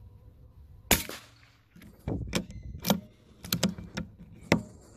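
A single shot from a CZ452 bolt-action rifle firing .22LR subsonic rounds, a short sharp report about a second in. Then a string of metallic clicks and clacks, the bolt being worked to eject the spent case and chamber the next round.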